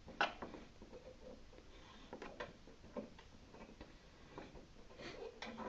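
Scattered metal clicks and taps of an Allen wrench working the treadmill's rear roller tension bolt through a hole in the side rail, tightening the walking belt. About half a dozen separate clicks, a pair near the middle and another pair near the end.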